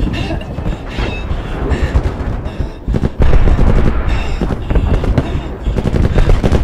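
Film battle sound mix: rumbling explosions and sharp blasts layered over dramatic music, growing louder about three seconds in.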